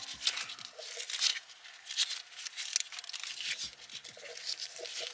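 Gloved hands handling a braided air-suspension line and its fittings: scratchy rustling and scraping with small clicks.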